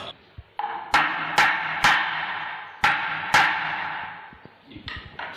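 Five blows of a claw hammer on a wooden stair skirt board, each with a short ringing decay. Three come about half a second apart, then after a pause two more.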